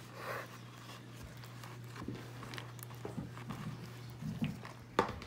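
Wooden spoon stirring thick glue slime in a clear plastic bowl: faint scattered squelches and scrapes, with one sharp knock near the end, over a steady low hum.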